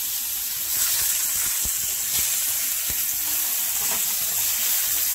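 Whole tomatoes sizzling in hot oil in a frying pan: a steady hiss with a few small pops, cutting off suddenly at the end.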